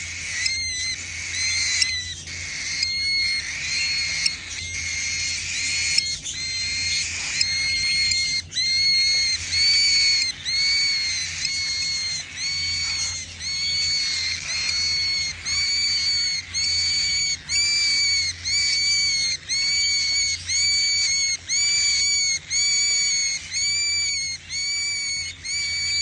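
Baby cockatiel calling over and over, one pitched call after another. The calls crowd together at first, then settle into an even rhythm of about one short call a second, typical of a chick begging for food.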